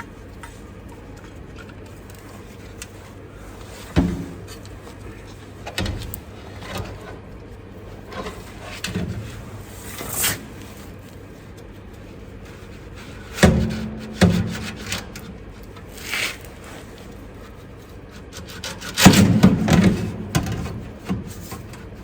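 Scattered knocks, clunks and scraping of metal exhaust parts and gaskets being handled and fitted to a truck's diesel particulate filter, with the loudest cluster of clatter near the end.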